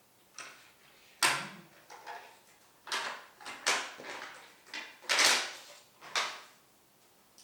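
Plastic toy garage playset pieces being handled and fitted together: a series of irregular clacks and knocks, with a longer scraping rattle about five seconds in.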